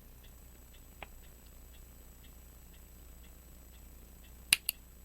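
Two sharp metallic clicks near the end, a fifth of a second apart, with a fainter click about a second in: a small screwdriver used as a punch, tapping against the pocket watch's balance staff to knock it out. A faint, even ticking runs underneath.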